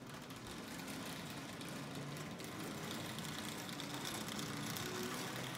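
Toy train locomotive running on DC along the track, its motor and wheels giving a steady, low running sound that grows slowly louder as it comes closer.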